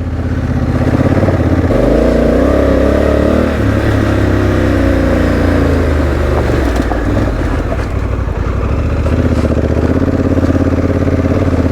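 Honda Africa Twin's parallel-twin engine running at low revs on a dirt trail, its note rising about two seconds in and easing back a second or two later as the throttle changes.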